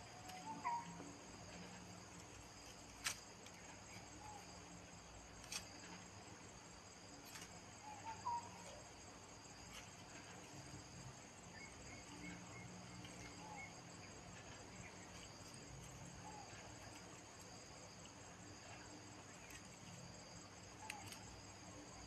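Faint, steady chirring of insects with several constant high tones. A few short chirps come about a second in and again about eight seconds in, and a few sharp clicks sound over it.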